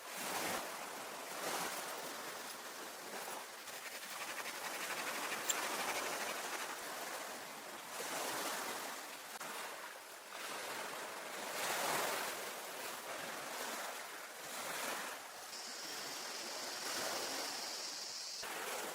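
Ocean surf washing onto the shore, the noise of the waves swelling and falling every few seconds. A steady high-pitched hiss joins for the last few seconds.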